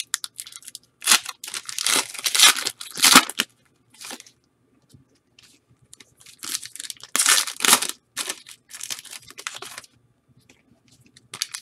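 Foil football card pack wrappers being torn open and crinkled, in two bouts of ripping and rustling with a quieter gap between them.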